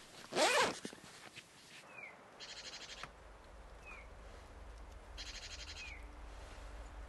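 Small forest birds calling: two short, rapid high trills and a few brief falling chirps. A single louder squeal, rising and then falling in pitch, comes about half a second in, with a faint low rumble underneath later on.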